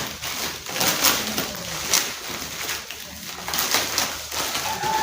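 Packaging being handled and opened: irregular clicks, crackles and rustling as an accessory is worked out of its wrapping.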